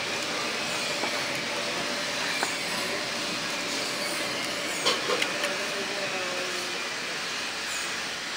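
Steady hissing background noise, with a few light clicks about five seconds in.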